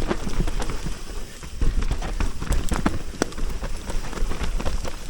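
Fezzari Timp Peak mountain bike descending a rough, muddy trail: a constant irregular clatter of knocks and rattles from the tyres and frame over roots and rocks. Under it runs a low rumble of ride noise on the camera mic.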